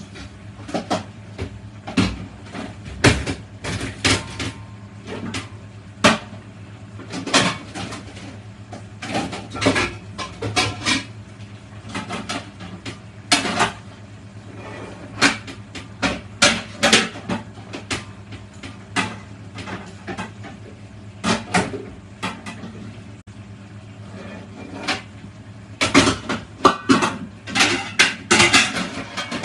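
Irregular clattering and knocking of kitchenware, pots, pans, utensils and cupboard doors being handled, growing busier near the end, over a steady low hum.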